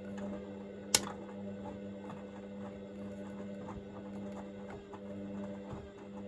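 Hoover VisionDynamic washing machine's drum turning a small load during its heat-up wash stage: a steady motor hum with light irregular ticks from the tumbling load, and one sharp click about a second in.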